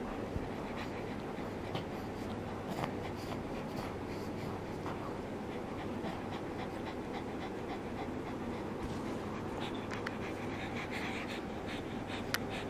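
A pug panting steadily, with faint scattered clicks and rustles.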